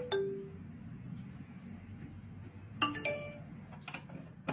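TECHWOO TWA-PA-08BT portable speaker's electronic power-on chime: a short two-note falling tone, followed about three seconds in by another brief electronic tone from the speaker. Near the end come sharp clicks as the wired microphone's plug is pushed into its jack.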